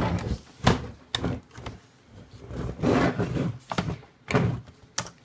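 HP EliteBook 8540p laptop being flipped over and set down on a wooden tabletop: several sharp knocks of its case, with two longer rubbing, handling sounds between them.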